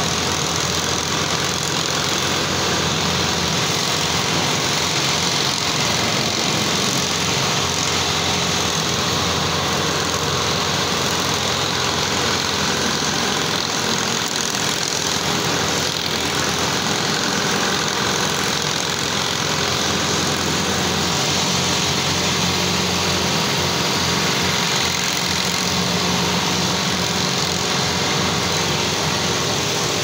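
Steady, loud industrial machinery noise in a blast furnace cast house: an even wash of noise with a faint steady hum underneath, unchanging throughout.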